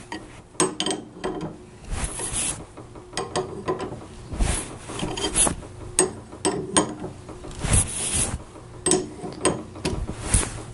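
Wrenches working the threaded puller of a wrist pin bushing remover, drawing the old bushing out of a Harley-Davidson Evo connecting rod: irregular metal clicks, scrapes and creaks as the tool is turned and the bushing, almost out, is pressed through the rod.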